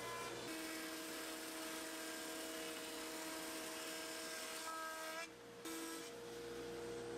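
Jointer and then a thickness planer running, a steady motor whine over cutterhead noise as cherry boards are milled, with the sound changing pitch and dropping out briefly about five seconds in.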